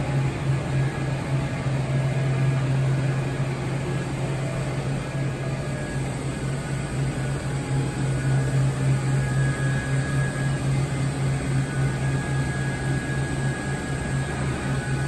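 Mazak Nexus 510C CNC vertical machining center, powered up and standing at idle: a steady low hum with fainter, higher steady whines over a constant machine noise.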